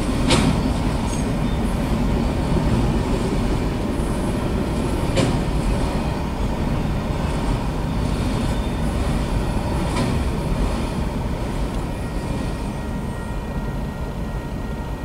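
Autorack freight cars rolling past: a steady rumble of steel wheels on the rails, with a sharp clank now and then, about every five seconds. The rumble eases off over the last few seconds as the end of the train goes by.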